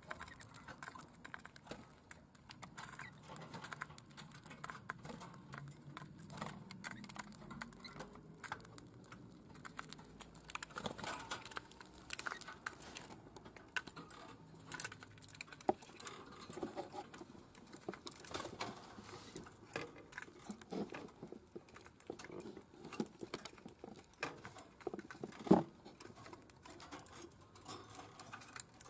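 Many small, irregular clicks and taps from a budgerigar cracking and husking seeds at a plastic feeder and stepping about on cage wire, with one sharper knock near the end.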